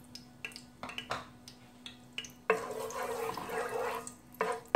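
Whole green cardamom pods frying in hot ghee in a pot: scattered sharp pops and crackles. From about two and a half seconds in, a wooden spatula stirs them through the fat, which sets off a continuous sizzle.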